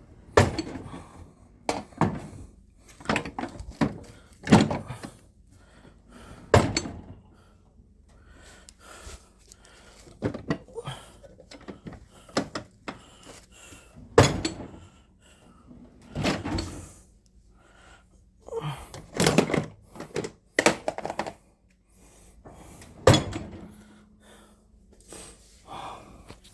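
Snap-on steel tool chest drawers being opened and shut and tools handled: a dozen or so separate thunks and clanks, irregularly spaced.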